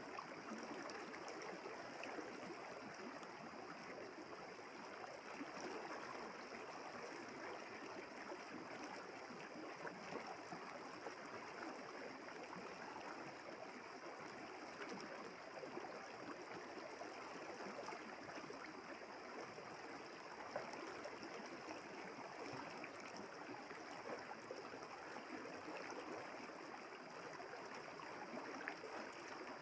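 Village river flowing steadily, a faint, even rush of water.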